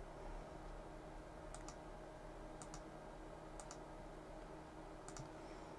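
Faint clicks from a control on the test bench being worked while setting the load current, in four quick pairs about a second apart, over a steady faint hum.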